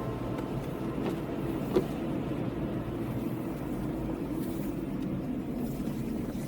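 Car driving, with steady engine and road noise, and one short sharp click nearly two seconds in.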